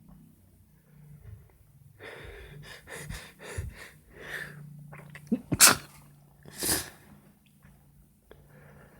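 A person sneezing twice, about a second apart, after a build-up of quick, catching breaths. The first sneeze is the louder.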